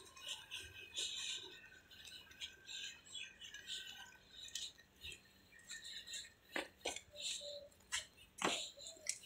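Faint footsteps and handling noise of people walking on pavement: scattered light rustling, with a few sharp clicks in the last three seconds.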